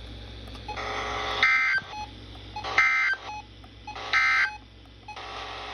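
NOAA Weather Radio SAME end-of-message data tones: three short bursts of two-tone digital data about a second and a half apart. They signal the end of the warning broadcast.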